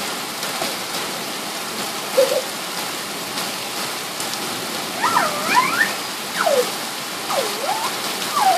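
Heavy rain falling steadily during a thunderstorm. From about halfway through there are several short, high, sliding calls.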